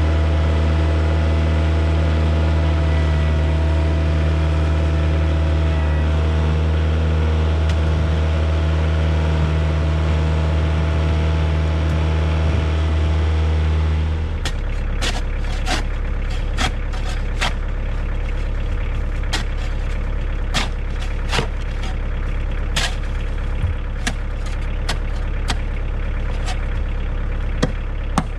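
Kioti DK40se tractor's diesel engine running steadily with a thin whine over it. About halfway through it drops to a quieter, lower hum, broken by scattered sharp clicks and knocks.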